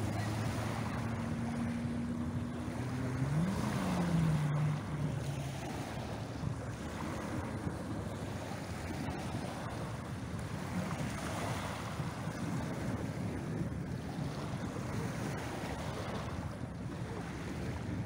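Small waves washing onto a shingle beach, swelling and ebbing every few seconds. A boat engine hums low in the first few seconds; its pitch rises and falls about four seconds in, and then it fades out.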